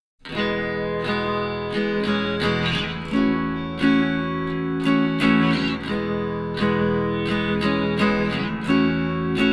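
Background music led by a strummed and plucked acoustic guitar, starting a moment after a brief silence.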